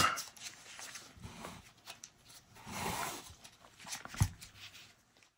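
Faint handling noise: a soft rustle about three seconds in and a single sharp knock a little after four seconds, then the sound cuts off.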